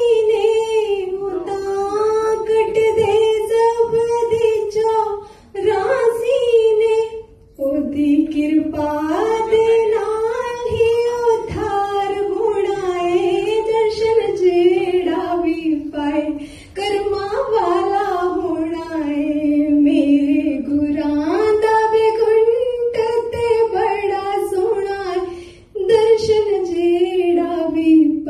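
A woman singing a Punjabi devotional bhajan unaccompanied into a microphone, in long held notes with a few short breaks for breath.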